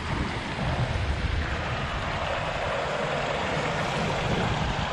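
Shallow stream rushing over stones in small rapids, a steady wash of water, with wind buffeting the microphone underneath.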